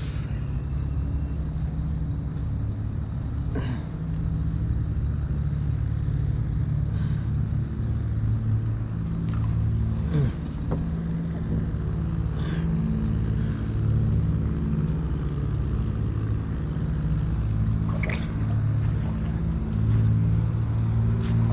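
Steady low rumble of race-car engines in the distance, their engine notes shifting up and down. A few light clicks and knocks of fishing tackle being handled on the kayak.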